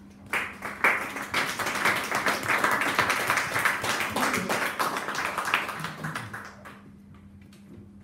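A small audience applauding, starting a moment in, then thinning out and dying away after about six seconds.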